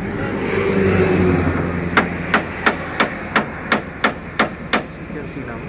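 Nine sharp knocks in a quick, even series, about three a second, after a steady machine hum in the first second or so.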